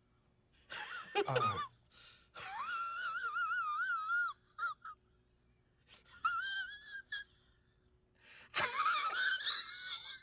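A person's high-pitched, wavering, wheezy vocal squeals in three stretches with silent gaps, the last near the end the loudest, after a short falling cry about a second in.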